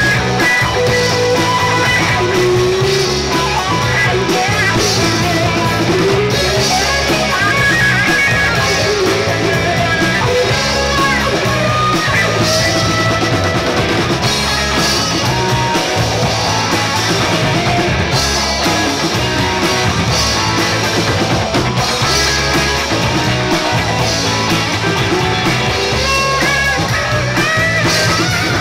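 Live amplified rock band playing a steady-beat song: electric and acoustic guitars, bass guitar and drum kit.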